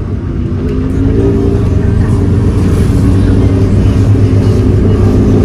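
A vehicle engine running steadily, growing louder over the first second and rising slightly in pitch as it accelerates.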